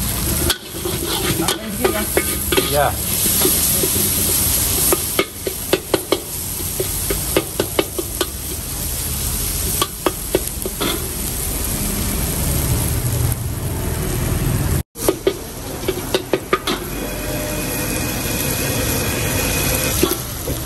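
Mee goreng frying in a wok: a steady sizzle, with the metal ladle scraping and clanking against the wok in quick runs of strokes as the noodles are tossed.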